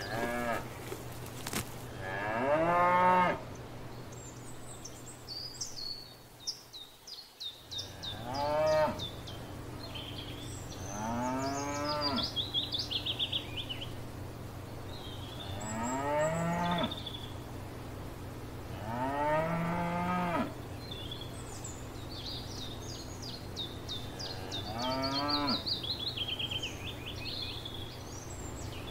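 Cows mooing about six times, a few seconds apart; each moo is long and rises then falls in pitch. Birds chirp and trill high and fast in the background.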